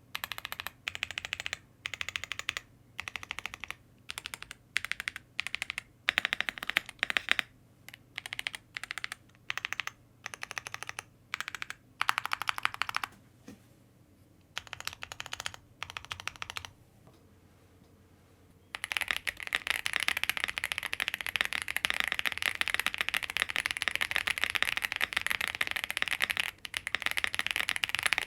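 Custom WIND X98 full-size mechanical keyboard with lubed Boba U4T tactile switches on a POM plate, being typed on: short bursts of keystrokes with pauses for most of the first part, then after a short lull about 19 seconds in, continuous fast typing.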